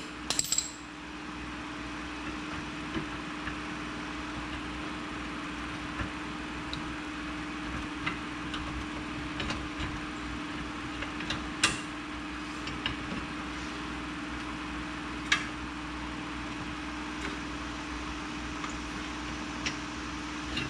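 A short run of ratchet-wrench clicks at the very start, then scattered light metal clicks and taps as a rear brake caliper is worked loose and lifted off by hand. A steady hum runs underneath throughout.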